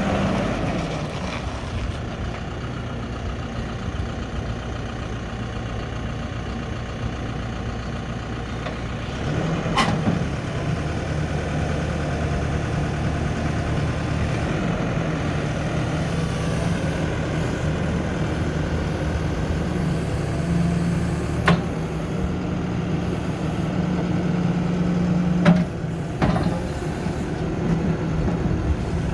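Lonking 83C backhoe loader's Perkins 3.6-litre diesel engine running steadily, stepping up to a higher speed about nine seconds in. A few sharp knocks sound over it.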